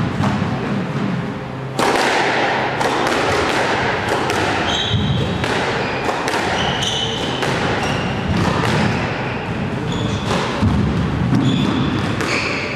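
Squash rally: the hard rubber ball cracked by rackets and thudding off the court walls again and again, with shoes squeaking on the wooden floor. The hitting starts about two seconds in.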